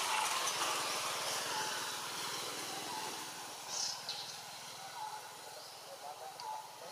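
Outdoor background ambience: a steady hiss that slowly fades, with a few short, high bird chirps now and then and a brief sharp sound about four seconds in.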